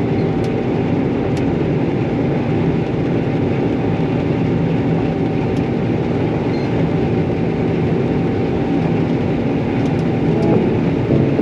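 Gleaner R52 combine running steadily at working throttle with the separator engaged: a loud, even machine drone with a faint steady whine through it.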